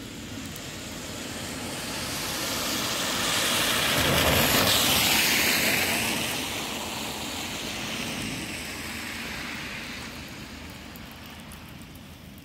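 A car passing by on a wet, slushy road, its tyre noise swelling to a peak about four to five seconds in and then fading away.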